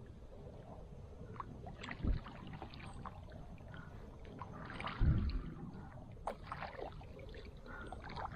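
Kayak paddle strokes in calm water: the blade dips and splashes, with scattered drips and two dull knocks about two and five seconds in.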